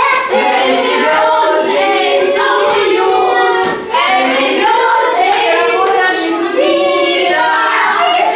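A group of children singing a song together, held notes following one melody, with one short break just before the middle.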